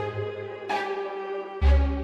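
Outro music with steady held notes and deep bass hits, one near the start and one about one and a half seconds in.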